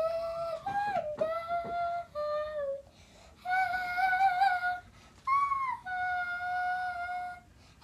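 A young girl's voice making wordless, drawn-out notes, several in a row of about a second each with short breaks between, some sliding down in pitch and others held steady.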